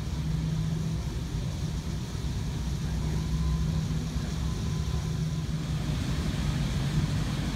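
Steady low hum of airport terminal background noise at a people-mover station, with a faint thin tone in the middle.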